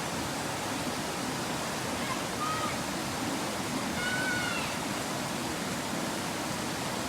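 Mountain valley stream rushing steadily over rocks. A faint, brief high-pitched call sounds about two and a half seconds in, and another about four seconds in.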